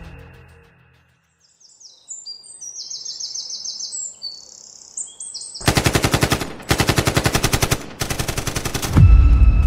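Birds chirping, cut off by three quick bursts of automatic gunfire, each about a second long. A deep boom follows near the end as music comes back in.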